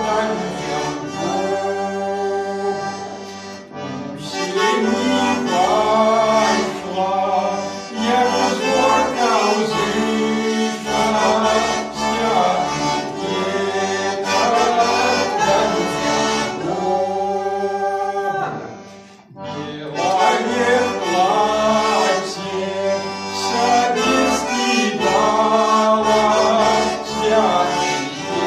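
Button accordion playing the tune of a Belarusian Christmas carol, breaking off briefly about two-thirds of the way through.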